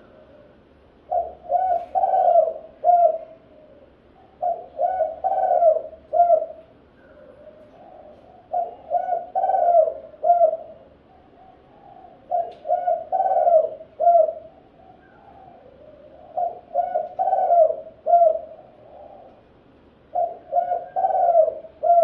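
Spotted dove cooing: six phrases of three or four coos each, repeated about every four seconds.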